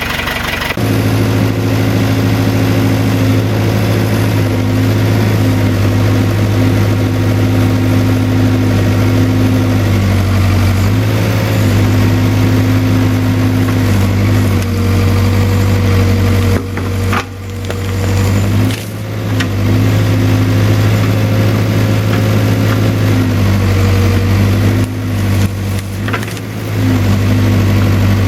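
Case 580K backhoe's diesel engine running steadily, its pitch dropping and coming back up a few times as the throttle or load changes. A few brief knocks are heard around the middle.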